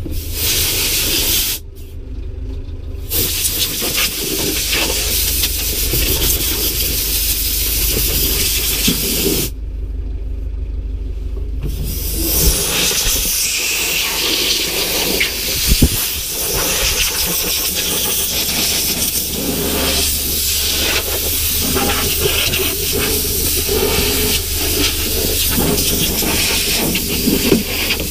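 Compressed-air blow gun hissing as dust is blown out of a tractor cab. The air cuts off twice, about two seconds in and again around ten seconds in, over a steady low hum.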